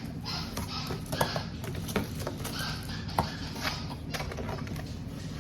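Scattered light clicks and taps, several a second, over a steady low hum.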